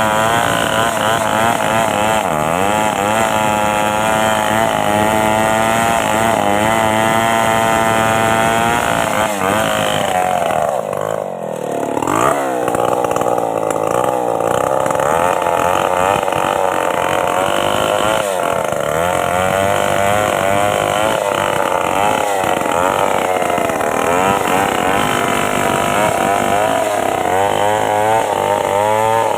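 Stihl chainsaw running at high revs as it cuts a tree, its pitch wavering under load. About eleven seconds in the engine drops briefly and revs back up.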